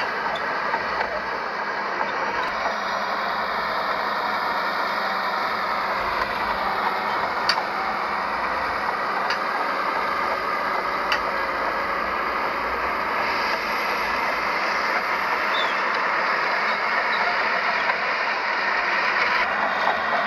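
Heavy earthmoving machinery running steadily, with a few sharp metallic clanks.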